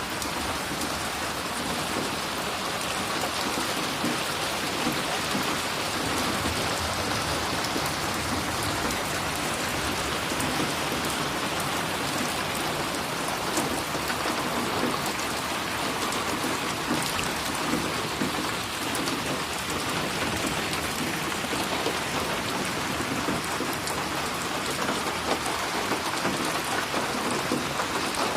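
Steady rain falling, with many individual drops splashing on a surface as a dense, even patter.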